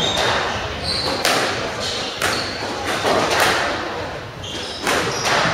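Squash rally: the ball is struck by rackets and hits the court walls in sharp impacts, roughly one a second, echoing in the hall, with short high squeaks of shoes on the wooden court floor.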